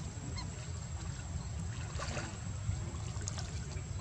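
A macaque gives a short call about two seconds in, over a steady low rumble.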